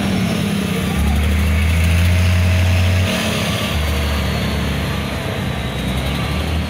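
Racing truck's diesel engine running at low revs as the truck moves slowly at walking pace: a deep, steady drone that drops away briefly about three seconds in, then comes back.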